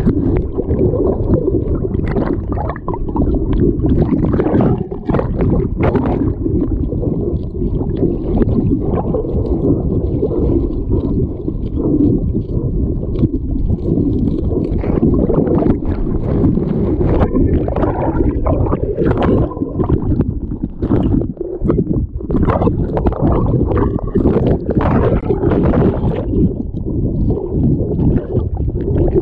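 Muffled rumbling and sloshing of river water heard through a GoPro's casing, with frequent irregular knocks and splashes.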